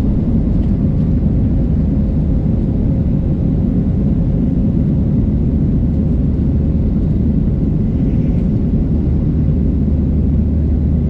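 Boeing 737-700's CFM56-7B turbofan engines at takeoff thrust heard from inside the cabin: a loud, steady low rumble with a faint constant hum above it.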